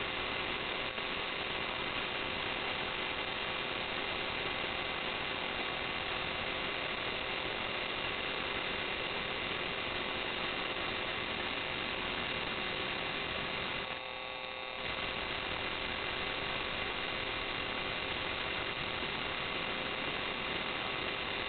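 Steady electronic hiss with several faint constant whines, the self-noise of a night-vision scope camera's recorder; the hiss dips briefly about fourteen seconds in.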